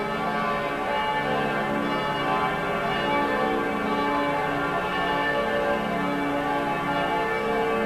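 Church bells ringing together in a full peal calling people to Sunday morning Mass: several bells of different pitches striking over and over, their long-ringing tones overlapping in a continuous wash.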